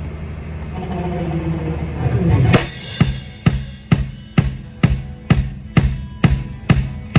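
Drum kit sound check through the PA. A low steady hum runs first, then a crash with cymbal ringing comes about two and a half seconds in. After that a drum is struck evenly, about twice a second.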